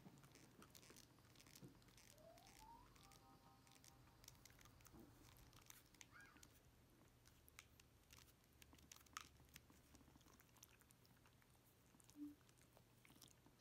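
Miniature dachshund gnawing a knotted rawhide chew: faint, irregular clicks and crunches of teeth on the hide.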